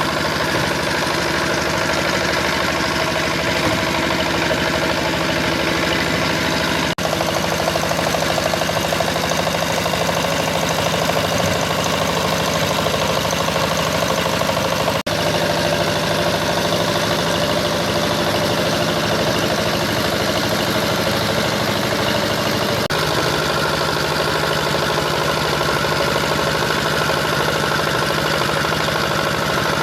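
Power tiller's single-cylinder diesel engine running steadily while ploughing a muddy paddy field, broken by three very short gaps where the sound shifts slightly.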